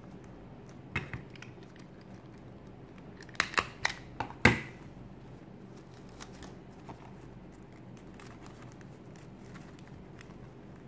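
Stiff, shiny folded fabric being handled and pressed into pleats, giving a soft crackle with a sharp click about a second in and a quick run of sharp clicks near the middle, the last the loudest.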